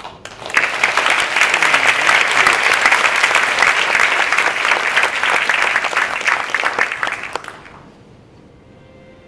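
Audience applauding for about seven seconds, then dying away. Near the end, faint held notes from the band begin.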